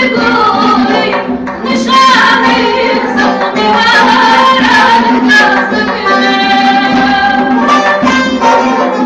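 Small live ensemble playing: an oud and a long-necked lute plucked over a frame drum's beat, with a woman singing.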